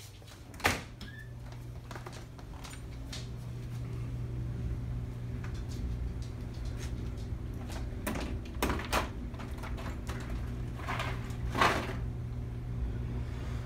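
A door knocks shut about a second in, then a few scattered knocks and handling thumps over a steady low hum that grows louder.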